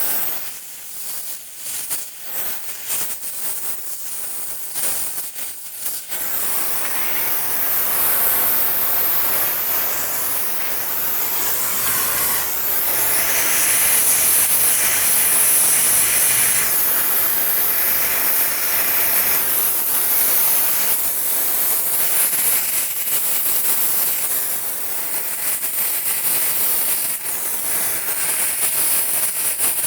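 Oxy-fuel gas torch flame hissing while a brass brazing rod is melted into a steel pipe joint. The hiss sputters unevenly for the first several seconds, then steadies and grows louder.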